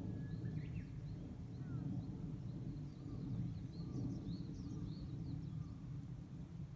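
Small birds chirping over a steady low rumble of outdoor ambience: a few rising chirps about half a second in, then a cluster of brief high chirps in the middle.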